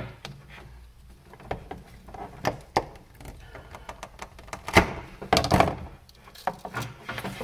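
Wire strippers and an extension cord being worked on a workbench: scattered clicks, knocks and handling rustle, with the sharpest knock about five seconds in.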